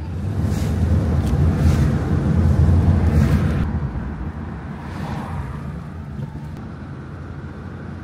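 Low, steady rumble of a car being driven, heard from inside the cabin with air rushing past. It is loudest over the first few seconds, with some whooshing, then eases to a quieter steady drone.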